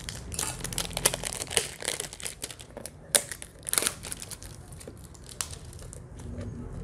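Clear plastic shrink wrap being torn and peeled off a smartphone box, crinkling continuously with sharp crackles, the loudest about three seconds in and again just before four seconds.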